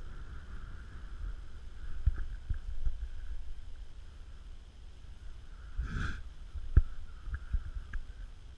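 Low rumble of wind on the microphone, with a few light knocks and a brief rustle about six seconds in; the sharpest knock comes just after it.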